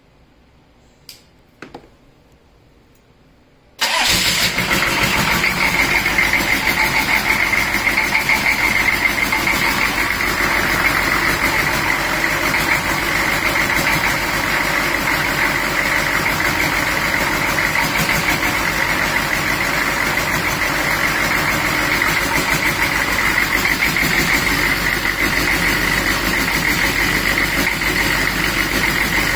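Two short clicks, then about four seconds in the 6.5-litre V8 diesel fires up abruptly and runs on steadily, with a steady high whine riding over the engine note.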